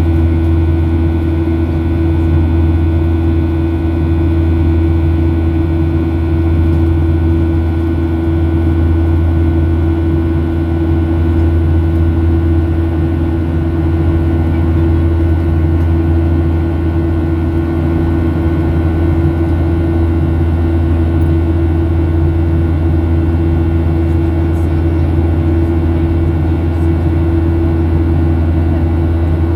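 Cabin noise of a Boeing 737-700 in flight: the steady drone of its CFM56-7B turbofan engines and the rush of air, a deep hum with several steady whining tones above it, heard from inside the cabin.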